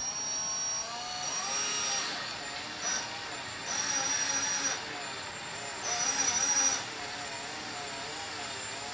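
Cordless drill on its slow setting turning an auger bit into wood to bore a brace-spindle hole. The motor whine wavers in pitch under load, with louder cutting noise twice in the middle.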